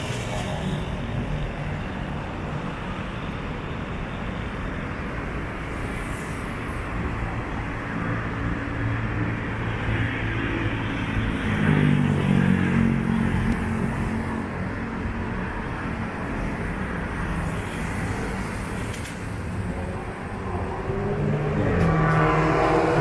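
Road traffic on a city street: steady noise of passing cars, one engine growing louder about halfway through, and another engine rising in pitch as it approaches near the end.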